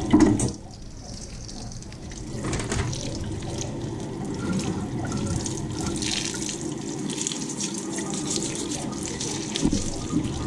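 Tap water running into a stainless steel sink and splashing over live Dungeness crabs being rinsed under the stream. It is louder for the first half second, and there is a short knock near the end.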